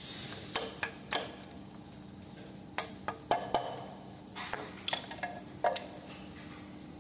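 About a dozen light, irregular clicks and knocks of metal parts being handled at an electric scooter's shock absorber mount, as bolts and brackets are fitted.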